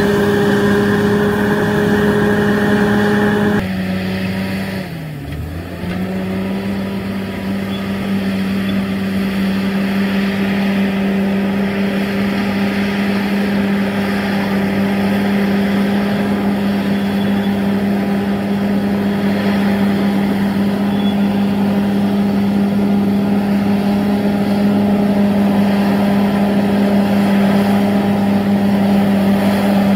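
Bulldozer's diesel engine running steadily under load. About four seconds in the engine note drops and sags in pitch for a moment, then picks back up to its steady drone.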